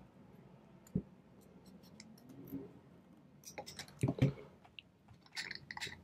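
Scissors snipping thin plastic from a yogurt container, quiet crisp cuts with a cluster of crunches around four seconds in. Near the end, light clicks and rattles as a metal dial combination padlock is handled.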